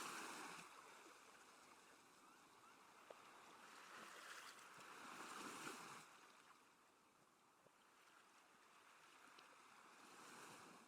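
Ocean waves washing onto a shore, faint, swelling and ebbing: one wave at the start, another about four to six seconds in, and a smaller one near the end.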